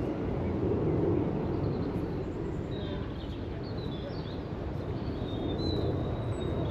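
Birds chirping in short high calls, several through the second half, over a steady low rumble.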